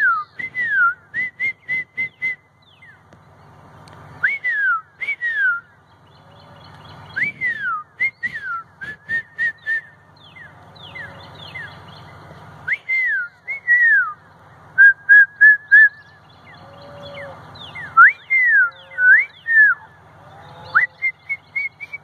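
A person whistling an imitation of a northern cardinal's song: about six phrases, each one or two downward-slurred notes followed by a quick run of short, even notes, with short pauses between.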